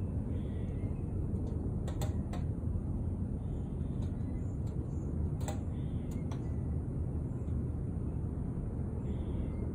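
Steady low outdoor rumble, with a few light clicks and rattles of a wire cage trap being handled, about four of them.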